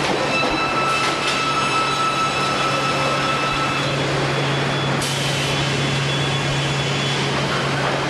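Sawmill machinery running: a steady mechanical din over a constant low hum, with a high steady whine for the first few seconds that stops about halfway through.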